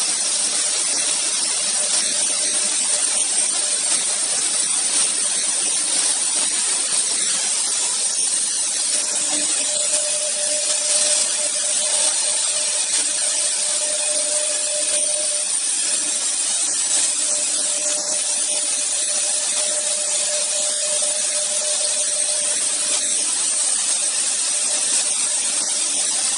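AKM1325-2 double-head CNC router's two spindles carving a wood panel together: a steady, high-pitched hiss of cutting with a faint steady whine.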